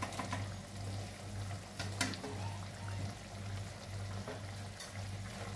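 Masala gravy at the boil in a steel kadhai, with a few soft clicks and plops as steamed gram-flour (besan) pieces are slid in off a steel plate, over a low pulsing hum.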